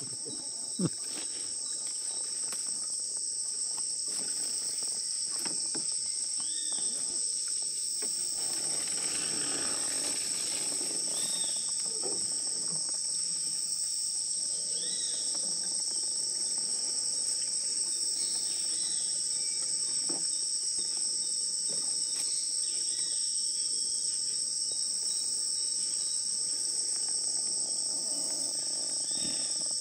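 Steady, shrill chorus of rainforest insects, a continuous high drone held at two pitches. A few short arched calls come through now and then, and there is a brief knock about a second in.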